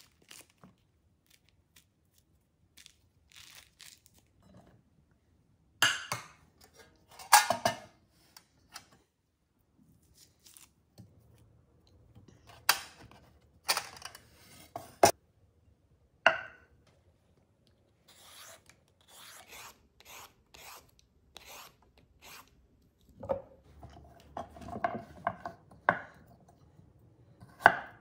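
Citrus peel torn off by hand, soft tearing and rubbing, broken by a few sharp knocks and clatters as the fruit and tray are handled. Near the end a chef's knife starts chopping carrots on a wooden cutting board, a run of quick strokes.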